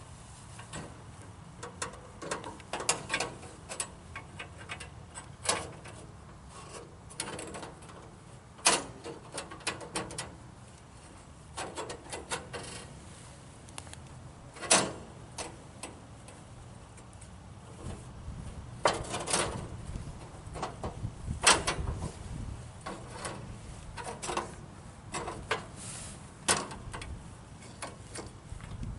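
Irregular clicks, knocks and short scrapes of metal being handled, as a bandsaw blade is worked off and onto a Frontier OS23 sawmill during a blade change, with a few louder knocks.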